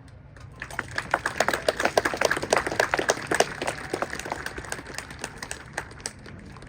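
A crowd clapping. The claps start about half a second in, run thick for a few seconds, then thin out near the end.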